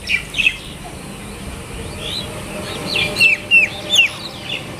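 Small birds chirping nearby: short, quick pitched notes, a couple at the start and a run of about six loud ones about three to four seconds in.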